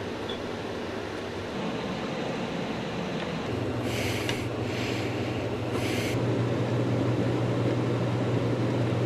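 Low steady drone with hiss that slowly grows louder. A deeper hum comes in about three and a half seconds in, and three short scratchy hisses sound a little after that.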